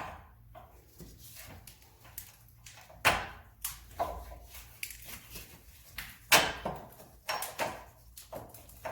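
Irregular metal clunks and knocks as the top bolt is worked out and the old rear shock absorber is pulled free of a Chevy Tahoe. The two loudest knocks come about three and six seconds in.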